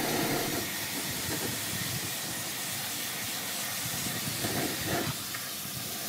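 Handheld hose spray nozzle giving a steady hiss as a fine jet of water rinses the inside walls of a newly built cement-and-glass aquarium tank.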